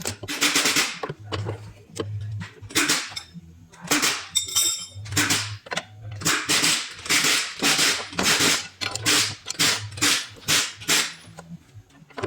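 Workshop tool work on the front suspension: an irregular series of loud, sharp metallic bangs and short rattling bursts, about one or two a second, with a low hum coming and going between them.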